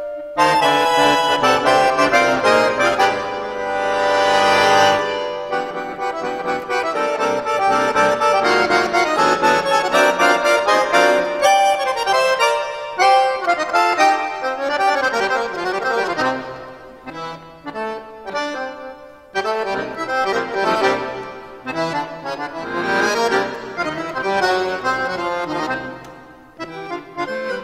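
Solo piano accordion playing: held chords for the first few seconds, then quick runs of notes, dipping briefly quieter a few times.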